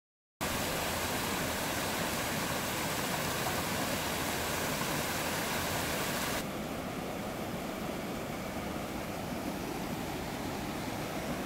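Mountain stream water rushing steadily over a small rocky cascade into a pool. It comes in suddenly about half a second in, and about six seconds in it turns duller and a little softer, with less hiss.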